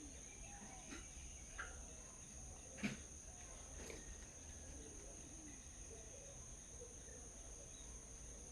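A steady, high-pitched drone of insects such as crickets, with a few faint bird chirps. A sharp tap about three seconds in is the loudest sound, followed by a softer one a second later.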